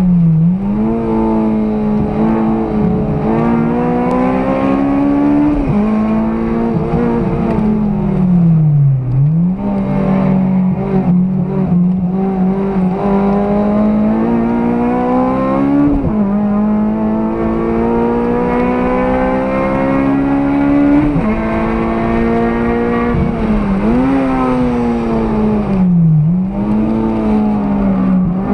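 Honda Civic Type R FD2's K20A four-cylinder engine, with an aftermarket intake, header and 3-inch exhaust, running hard on track and heard from inside the cabin. Its note climbs steadily through the revs and drops away sharply, then climbs again, several times as it comes off and back on the throttle.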